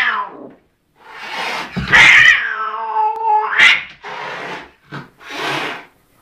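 White cat hissing and yowling at its own reflection in a mirror: a string of sharp hisses, with one drawn-out yowl near the middle.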